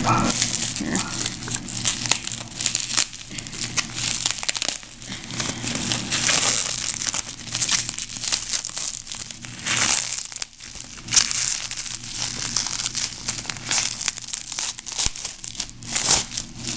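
Plastic bubble wrap being pulled open and crumpled by hand: a continuous, irregular crinkling and crackling with a couple of short lulls.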